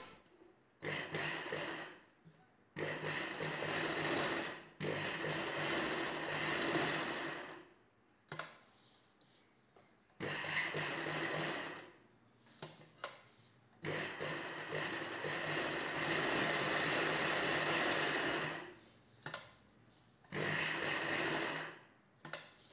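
Ralson sewing machine stitching a lace strip onto blouse fabric, running in about seven spells of one to five seconds with short pauses between, the longest near the middle.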